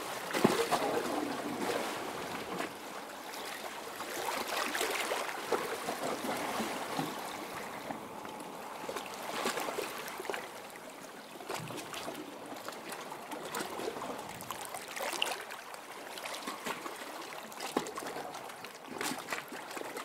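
Sea water washing and splashing over rocks, a constant wash full of small splashes that surges and eases every few seconds.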